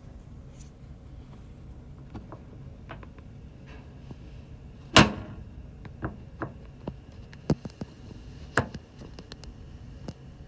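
Steady low hum of a tanker under way, with one loud sharp knock about halfway through, then several lighter clicks and taps.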